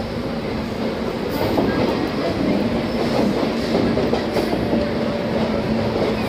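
Passenger train coach rolling alongside a station platform, heard from its open doorway: a steady rumble of wheels on the rails with clickety-clack and a low steady hum.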